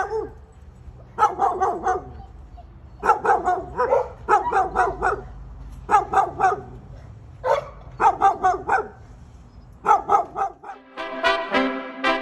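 A dog barking in quick runs of three to five barks, with short pauses between the runs. Music comes in near the end.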